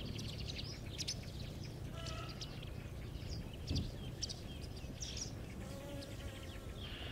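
A flock of brown laying hens feeding at bowls: many short, high chirps and clicks and a few brief pitched calls over a low background rumble, with a single louder thump a little under four seconds in.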